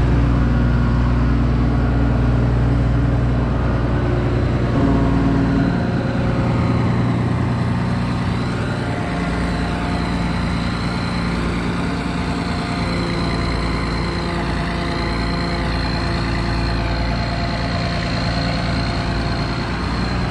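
Case 2144 combine's diesel engine running steadily, its note shifting about a quarter of the way in, with a thin high whine joining about halfway through.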